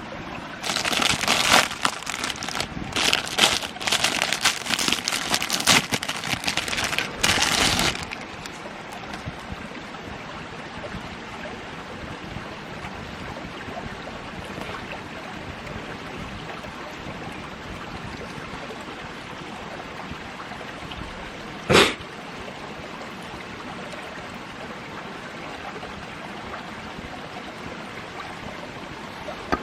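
Steady rushing of flowing water, like a nearby stream. For the first eight seconds or so it is covered by a run of loud, irregular noisy handling sounds, and one short sharp sound stands out about 22 seconds in.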